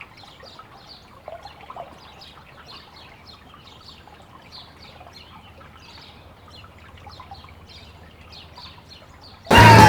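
Birds chirping outdoors in a faint, steady series of short, high, slightly falling calls, two or three a second. Near the end, loud music starts suddenly.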